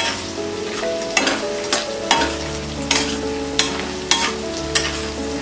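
A spatula stirs peanuts, diced potatoes and onions frying in oil in a pan. It scrapes and taps the pan in regular strokes, about one every half-second to second, over a steady sizzle.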